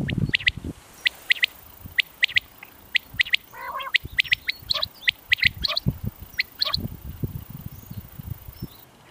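Common quail song: sharp three-note 'whit wit-wit' phrases repeated about once a second. A low rumbling noise comes at the start and again in the second half.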